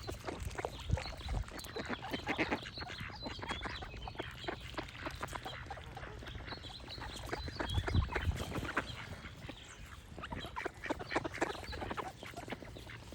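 Ducks quacking in quick, repeated calls, with small birds chirping high above them through the first half.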